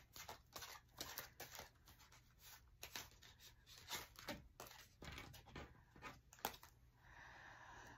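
Faint, quick, irregular flicks and soft slaps of playing cards being dealt and laid down on a cloth-covered table.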